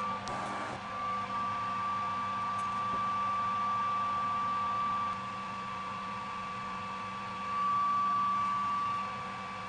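Steady machine hum with a few fixed tones, after a click right at the start; it swells slightly near the end.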